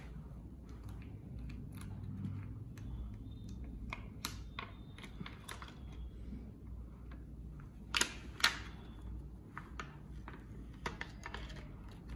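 Clear plastic carrier sheet being peeled slowly off heat-pressed reflective vinyl on a cotton T-shirt after cooling, crackling in scattered small clicks, with two louder crackles about eight seconds in.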